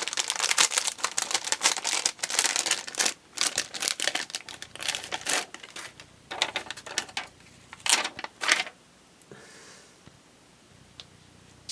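Crinkling and rustling of plastic packaging and paper being handled, dense rapid crackling for the first few seconds, then scattered bursts, falling quiet over the last few seconds.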